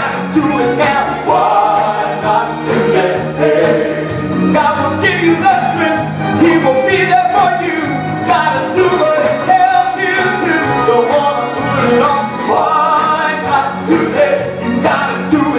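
A Christian song: singing over a steady instrumental backing.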